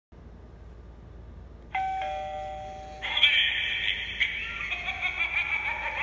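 Gemmy animated eyeball Halloween doorbell sounding an electronic ding-dong chime about 1.7 s in: a higher tone, then a lower one. From about 3 s a recorded voice clip plays from its small speaker as the eyeball is revealed.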